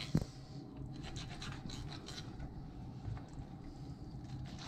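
Kitchen knife scraping and cutting along a fish carcass on a wooden cutting board, a run of short scratchy strokes, with one sharper knock just after the start. The knife is dull.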